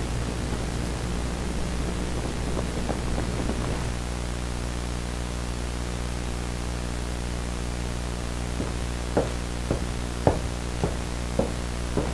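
Steady hum and hiss, then, about nine seconds in, footsteps at an even walking pace, a little under two steps a second.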